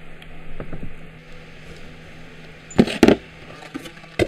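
Metal differential parts knocking as the cross shaft and gears come out of a Subaru R160 carrier and are set down in a cardboard box: a few light clicks, then two sharp knocks close together about three seconds in and another near the end.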